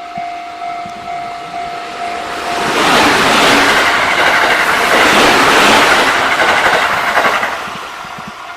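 Japanese level-crossing warning bell ringing its repeating two-tone ding, about one and a half times a second. About three seconds in, an electric train passes over the crossing; its wheels and running noise drown the bell for about five seconds, then fade away as the bell carries on.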